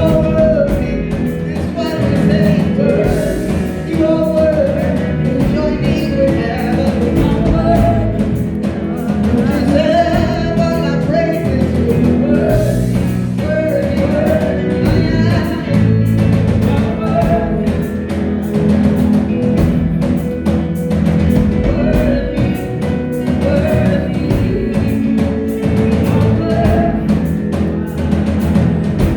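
Live gospel worship music: singers with a full band of drum kit, bass and guitar playing steadily.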